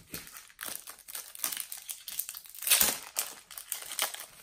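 Plastic wrapper of a Panini Adrenalyn XL trading-card packet crinkling and crackling as it is handled and torn open, loudest a little under three seconds in.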